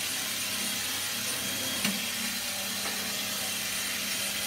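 Cordless drill running steadily as its bit bores into the lock of a solid-steel ATM cash box, with one short click about two seconds in.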